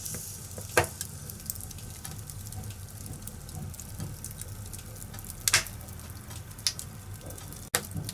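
Wood fire crackling in a fireplace: a steady hiss over a low rumble, broken by several sharp pops, the loudest about a second in and about five and a half seconds in.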